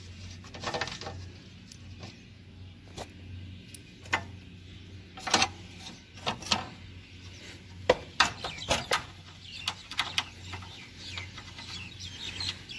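Irregular metal clinks and clacks of hand tools and bolts being worked loose on a mower deck, over a steady low hum.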